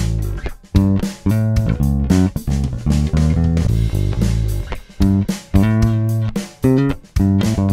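Electric bass played as a melodic line of plucked notes and chords, with brief breaks between phrases about a second in, near five seconds and near the end.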